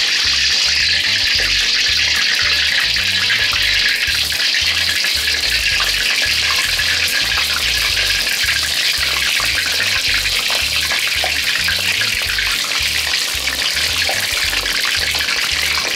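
Chicken nuggets deep-frying in hot oil in a steel wok: a steady, loud sizzling hiss with fine crackles, the oil at full frying heat.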